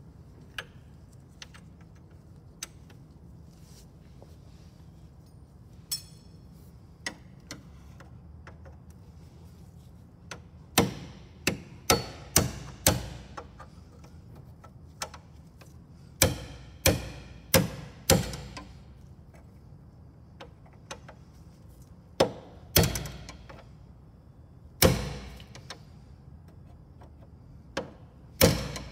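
Hand tool knocking and clicking against the metal fittings of a nose gear oleo strut as it is fitted: scattered sharp single knocks, with clusters of louder ones about eleven and sixteen to eighteen seconds in and a few more near the end.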